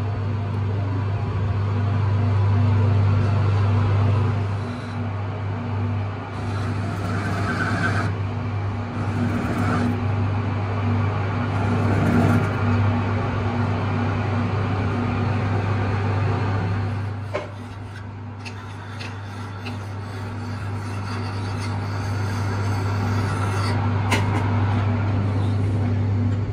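Raza metal lathe running, its spindle and chuck spinning a small steel part with a steady deep hum, while the cutting tool works the part in a few short spells of louder cutting noise near the middle. The sound drops a little in level after about two-thirds of the way through and the lathe keeps running.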